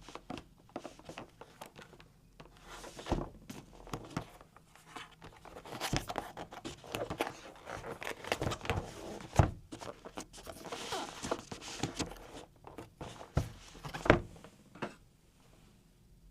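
Keys of a Logitech K98M mechanical keyboard with Marble switches clacking in an irregular run of typing. A few louder thuds stand out, about three seconds in, halfway through and near the end, with brief stretches of rustle between.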